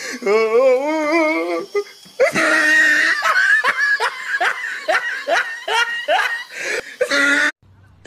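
Loud human laughter: a wavering, drawn-out laugh at first, then about five seconds of hearty, rhythmic 'ha-ha-ha' laughing that cuts off suddenly near the end.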